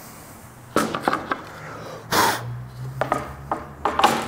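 A thin board set down on a workbench, with a short scrape about two seconds in, and a run of sharp knocks and clinks as small tools and hardware are picked up and moved about on the bench, the loudest near the end.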